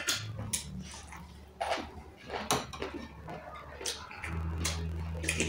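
Spoons clinking against bowls and plates while eating, several sharp clinks spread out a second or so apart. A low steady hum comes in about four seconds in.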